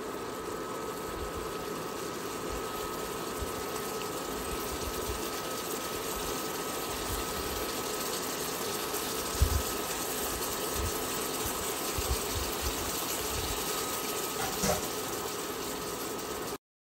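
Pork chunks and mushrooms in sauce sizzling steadily in a cast-iron skillet, with a faint steady high whine and a few soft knocks. The sound cuts off suddenly near the end.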